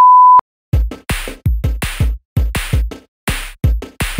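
A steady high test-tone beep, the kind played over colour bars, cuts off about half a second in. Then electronic intro music starts: a drum-machine beat of deep kicks and sharp hits in a choppy, stop-start rhythm.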